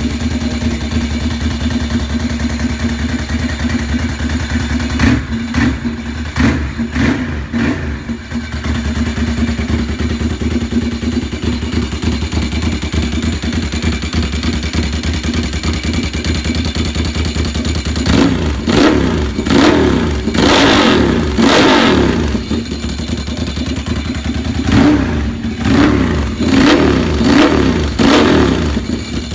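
1997 Ducati 748's 90-degree V-twin running with no exhaust silencers fitted: a steady, loud idle with a few quick throttle blips early on, then repeated revving about two-thirds in and again near the end.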